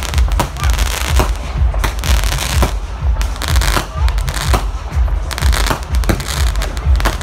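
Fireworks display: aerial shells bursting one after another, about two bangs a second, over a continuous crackling hiss and a deep rumble.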